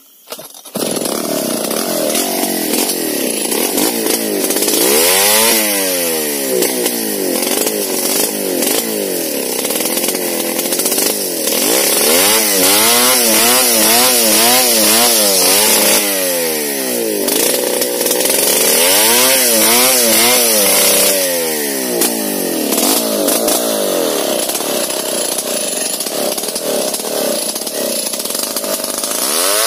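Two-stroke chainsaw comes in sharply about a second in and runs under load, ripping a bangkirai log lengthwise into beams. Its engine speed rises and falls again and again as it cuts.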